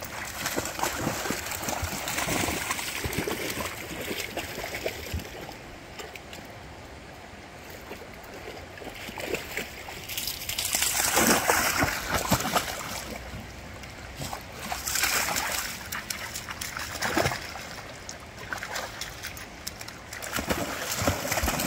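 Fast-flowing creek water rushing, with dogs splashing as they wade in the shallows; the splashing comes in louder surges at intervals.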